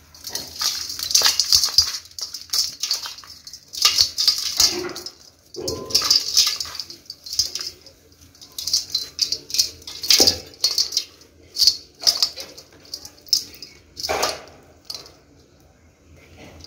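Dry clumps of dirt crumbled and crushed by hand, crunching and pattering into a perforated aluminium bowl in repeated bursts every second or two.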